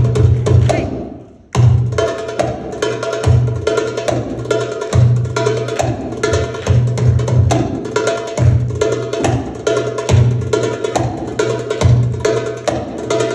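Egyptian tabla (metal goblet drum, darbuka) played live in a fast solo, with deep dum strokes and sharp tek rim strokes in a driving rhythm. About a second in, the playing breaks off and fades, then comes back in hard.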